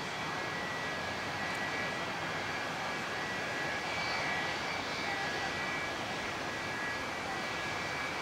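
Twin rear-mounted jet engines of a DC-9/MD-80-family airliner running at taxi power: a steady rushing noise with a high, even whine on top.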